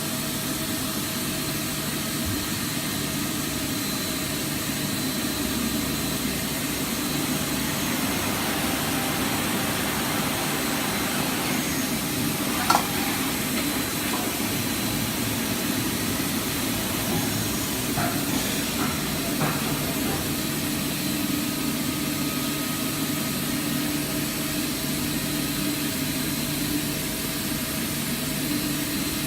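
Mazak Integrex 300-IV ST CNC multi-tasking turning center running: a steady machine hum with a faint high whine and hiss. A single sharp metallic click comes about 13 seconds in, and a few brief ringing clinks come near the 18 to 19 second mark.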